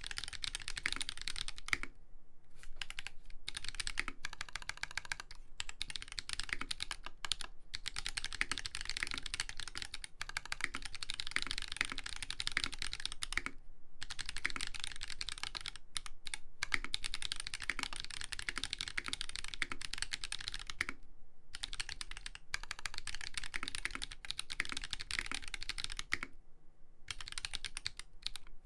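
Fast, continuous typing on an LZ Iron custom mechanical keyboard: lubed Holy Panda tactile switches in a brass plate, with ABS keycaps. Dense key clacks, broken by a few brief pauses.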